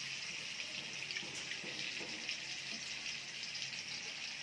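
Steady sizzle of potatoes frying in oil in a pan.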